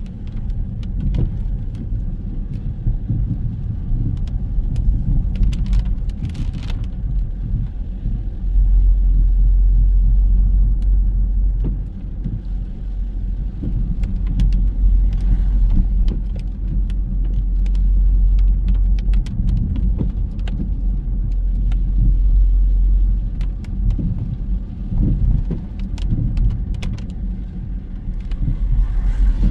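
Road traffic: a steady low rumble of cars, swelling heavier for a few seconds now and then, with a few faint clicks.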